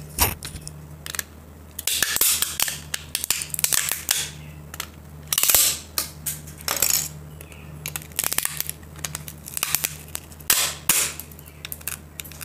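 Black plastic case of a laptop battery pack being pried and cracked open with pliers: a series of sharp cracks and snaps at uneven intervals, with scraping and handling noise between them.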